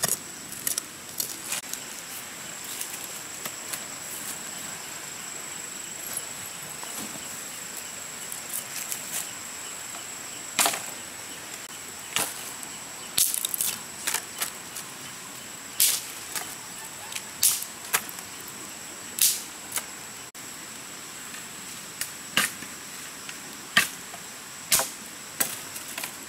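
Machete work: soft scraping in soil, then from about ten seconds in, sharp chopping strikes every one to two seconds as the blade hits sticks and poles. A steady high-pitched insect drone runs underneath.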